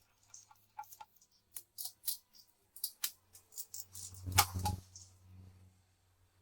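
Light clicks and clinks of hand tools and small metal motorcycle parts being handled, in an irregular series, with a cluster of louder knocks about four and a half seconds in, over a faint low hum.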